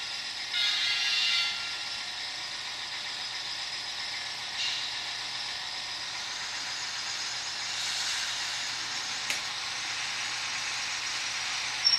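Model railway maintenance vehicles (a motorized crane and a tamping machine) with a steady hissing run of machinery. A short pitched tone sounds about half a second in, and there is a small click late on.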